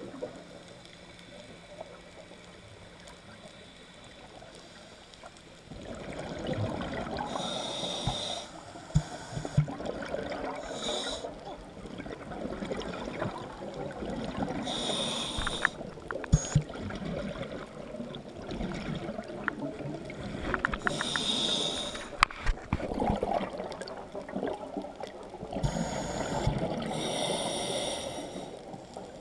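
Scuba diver breathing through a regulator, heard underwater: a sharp hissing inhale several times, each followed by a long bubbling exhale, with occasional clicks.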